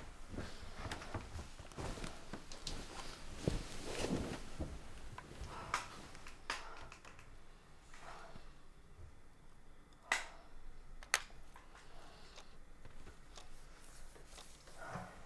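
Close rustling of clothing and bedding with light knocks and taps as a small plastic alarm clock is picked up and handled, then two sharp clicks about ten and eleven seconds in.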